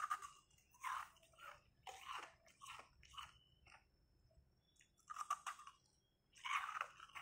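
Biting into and chewing a block of carbonated ice close to the microphone: a run of crisp crunches about one a second, a pause near the middle, then more crunches near the end.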